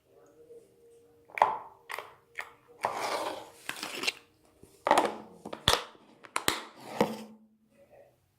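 Slime being squeezed and worked in the hands: an irregular string of crackling, squishing bursts with a few sharp pops.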